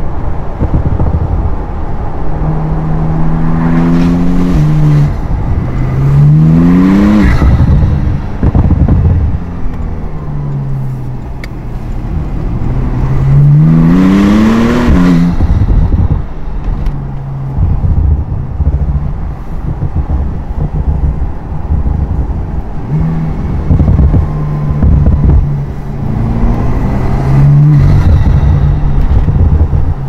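Techart GT Street R Cabriolet's twin-turbo flat-six heard from inside the cabin, pulling hard with a rising note three times in the first half, the pitch dropping between pulls. It then runs at steadier revs with a couple of short rises near the end.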